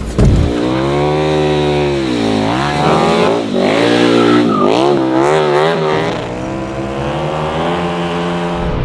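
KTM 1290 Super Duke R's V-twin engine revving hard, the revs rising and falling several times in quick succession, with a sharp knock just after the start.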